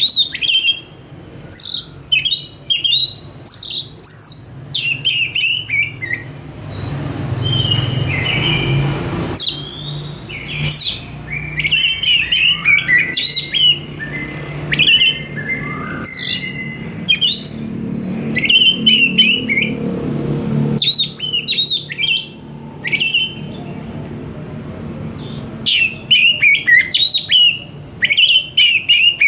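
Oriental magpie-robin (kacer) singing in full voice: bursts of quick, sharp, high whistled notes that sweep in pitch, repeated over and over. A low steady rumble runs underneath through the middle stretch.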